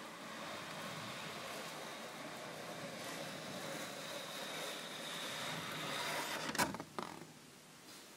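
Paper picture card sliding out of a wooden kamishibai theatre frame: a steady scraping hiss that grows slightly, then two sharp knocks about six and a half and seven seconds in as the card comes free.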